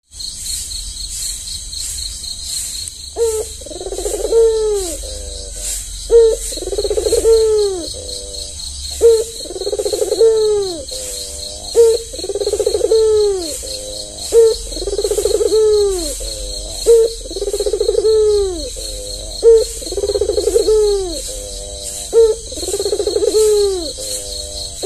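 Albino ringneck dove (puter) cooing over and over: each call is a short note followed by a longer rolling coo, repeated about every three seconds from about three seconds in, eight times. A steady high insect chirring, like crickets, runs behind.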